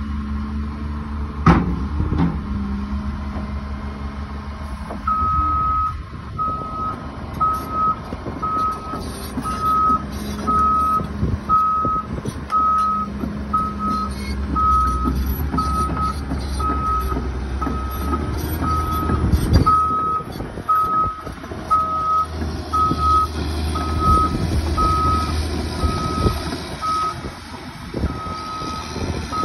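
Caterpillar hydraulic excavator's engine running under load, with a sharp knock about a second and a half in. From about five seconds in its travel alarm beeps steadily, a little over once a second, the sign that the machine is moving on its tracks.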